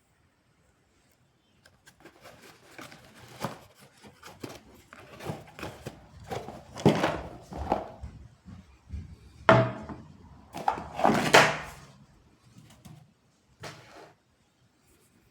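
Handling noises: irregular knocks, thuds and rustling, as of objects being moved and set down on a hard surface, with a few louder thumps in the middle.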